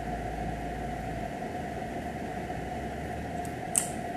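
Steady background hiss with a faint constant hum: room tone, with a brief soft high rustle near the end.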